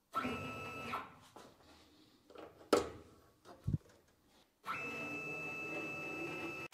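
A quick-change tool holder being put onto a multifix-style tool post: one sharp metallic click about two and a half seconds in and a short low clunk about a second later. Before and after, there is a steady hum with a thin whine, in two stretches that start and stop abruptly.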